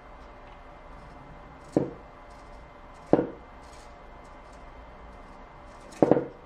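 Three sharp knocks, the last one doubled, from a small hobby-servo robot arm with a wooden boom as it jerks between positions, with short faint servo buzzes in between.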